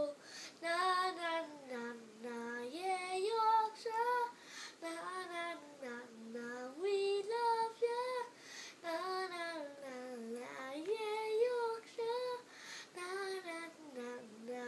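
A young boy singing a song unaccompanied, in phrases of about two seconds with short breaths between them.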